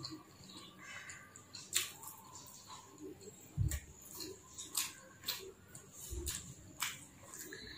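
Close-up eating sounds: a man chewing with wet mouth clicks and lip smacks in an irregular run, while his fingers work rice and chicken on a plate. Two dull low thumps come about midway and near the end.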